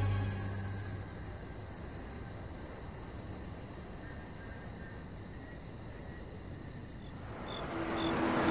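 A music cue dies away in the first second, leaving a faint steady hiss. Near the end an outdoor ambience fades in, with high insect chirps about twice a second over a rising wash of noise.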